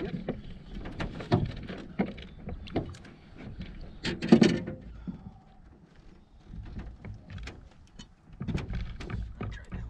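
Irregular knocks and clatter from handling in a small fishing boat, with one louder bump about four and a half seconds in.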